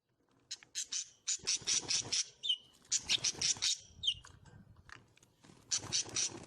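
Small pet birds calling in repeated bursts of rapid, harsh chirps, with a couple of short whistled notes in between.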